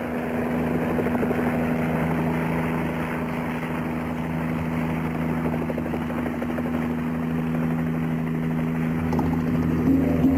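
Helicopter flying overhead: steady engine and rotor noise with a low, even hum.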